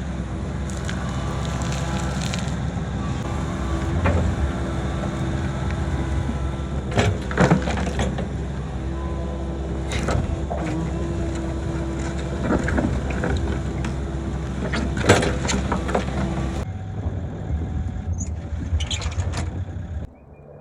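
Midsize excavator's diesel engine running steadily under work, with several clanks and scrapes from the bucket moving soil during trench backfilling.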